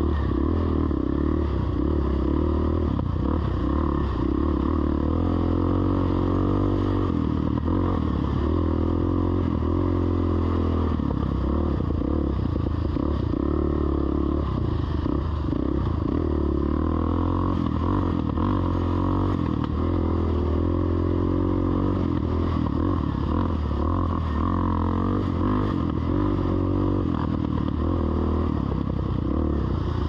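Dirt bike engine running steadily as it is ridden along a trail, with small rises and falls in pitch and no sharp revving.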